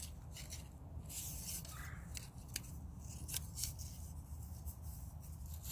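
A few light clicks and rubbing sounds of a compound bow being handled as an arrow is nocked, over a low steady rumble.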